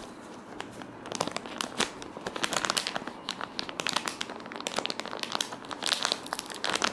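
Plastic packaging pouch crinkling in irregular crackles as hands handle it to unwrap the adapter inside.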